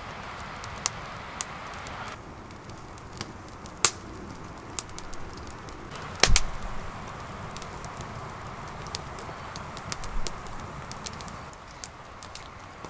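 Wood campfire crackling, with irregular sharp snaps and pops over a steady hiss, and one heavier knock about six seconds in.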